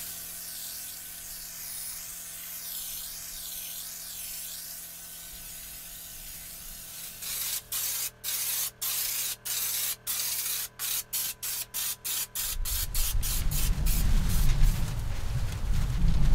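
Air-powered spray gun spraying Raptor bed liner: a steady high hiss, then the spray cutting in and out in a quick run of short bursts. Near the end a loud low rumble takes over.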